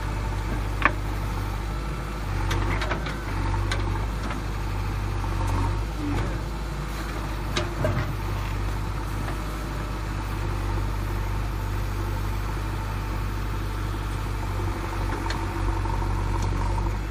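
An engine idling steadily with a low hum, broken by a few sharp clicks. It cuts off suddenly at the end.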